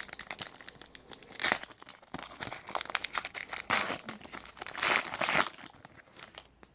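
Plastic trading-card pack wrapper crinkling and being torn open, in a run of crackling bursts with a few louder tears, the longest about five seconds in, dying down near the end.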